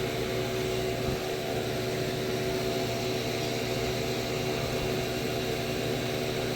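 Steady mechanical background hum with several constant tones and no distinct event.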